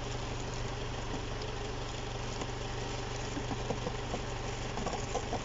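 Isuzu D-Max engine idling steadily, with a few light handling clicks in the second half.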